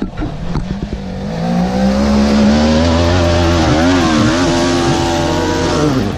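A vehicle engine revving up about a second in and held at high revs, its pitch wavering, then backing off suddenly near the end.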